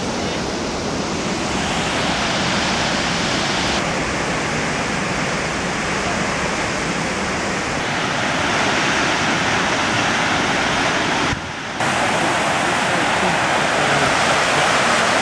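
A steady rushing noise of wind and sea surf, with a brief drop about eleven seconds in.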